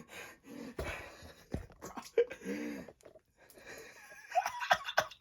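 A person's breathy, wheezy vocal sounds: short moans and gasps, with a run of short clicks and squeaks near the end.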